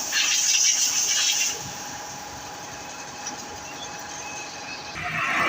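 Pressure washer jet spraying with a loud hiss for about a second and a half, then stopping, leaving the machine's steady hum; the spray starts again near the end.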